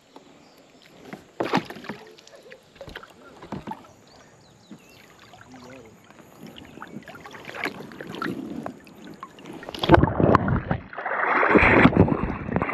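Faint knocks and rattles of gear in a kayak, then about ten seconds in a loud rush of water splashing close to the microphone.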